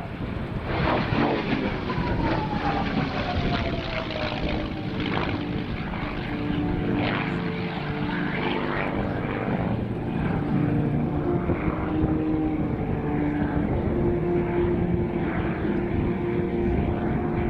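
P-51D Mustang's Packard-built Merlin V12 engine running as the propeller plane flies, its pitch falling about two seconds in.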